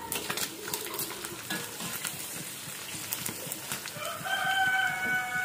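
Small salted fish frying in oil in a wok, a steady crackling sizzle as they are stirred with a slotted spatula. About four seconds in, a rooster crows, one long held call.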